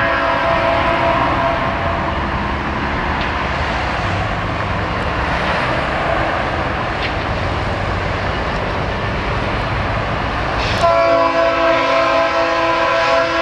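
Diesel freight locomotive approaching and closing in, its engine and wheels making a steady heavy rumble. About eleven seconds in, its multi-tone air horn sounds a sustained chord that holds to the end.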